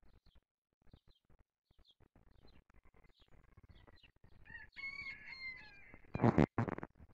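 A rooster crowing, one drawn-out call with several breaks, over the steady chirping of small songbirds. Near the end two loud, short bursts of handling noise on the microphone drown everything out.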